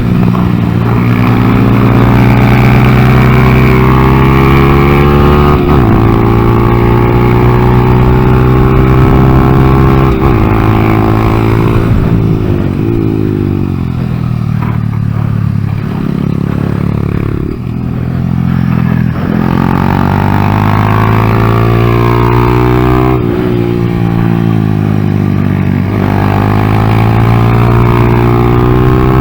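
2014 Honda Grom's 125 cc single-cylinder four-stroke engine revving hard around a track, its pitch climbing through the gears and dropping sharply at each shift, easing off for a few seconds midway before building again. The engine is running poorly, which the rider puts down to the ECU not having been reset after the engine swap.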